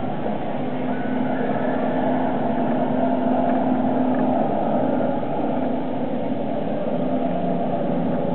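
A steady mechanical drone with a low hum held for about four seconds, then fading back into the drone.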